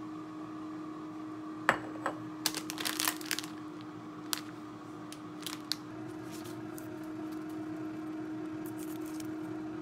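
A glass sauce bottle and a crinkly plastic noodle packet being handled and set down: clicks, taps and crinkling, most of them between about two and three and a half seconds in and a few more later, over a steady low hum.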